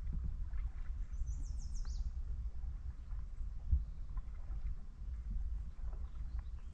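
Water lapping and ticking against a kayak's hull close to the microphone, over a steady low rumble. About a second in, a bird gives a quick run of short high notes.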